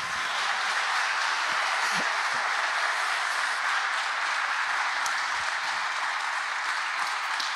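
Congregation applauding, a steady, dense clapping held at an even level.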